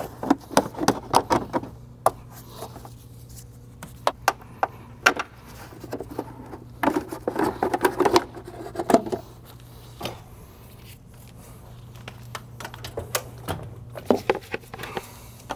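Irregular clicks, knocks and rustling of parts being handled as vacuum lines are unclipped and the intake air filter housing is worked loose from the engine, over a steady low hum.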